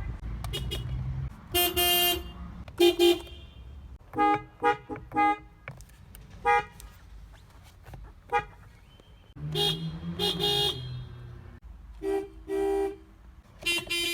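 Toyota car horns honked again and again: mostly short toots, some in quick runs of three or four, and a few longer blasts, with an engine running underneath at times.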